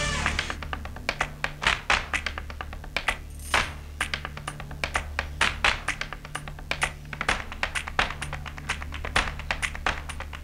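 Live fusion music: a loud crash at the start, then rapid, uneven percussion strikes over a steady low bass line.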